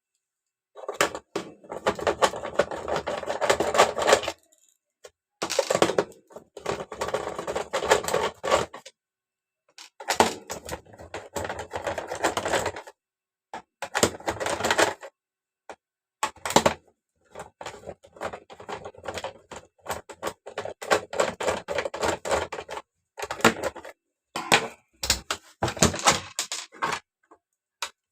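Clicking and rattling of a UPS unit's plastic casing and parts being handled as it is opened to reach the battery, in bursts of a few seconds with silent gaps between them.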